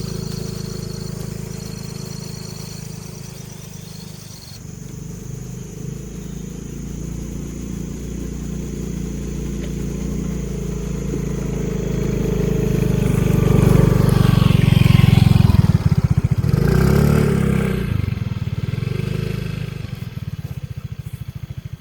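A motor vehicle's engine running, growing louder to a peak about two-thirds of the way in, then easing off to a slow, even throb near the end.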